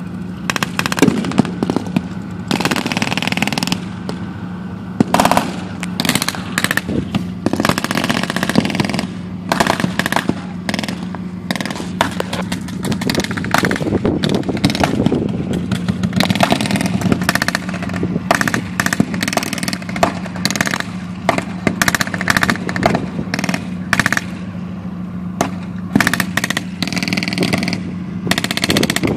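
Bursts and single shots of blank gunfire, machine gun among them, going off irregularly throughout, over the steady low hum of the StuG assault gun's engine running.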